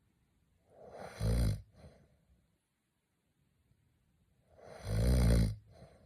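A man snoring in his sleep: two loud snores about four seconds apart, each followed by a brief fainter sound.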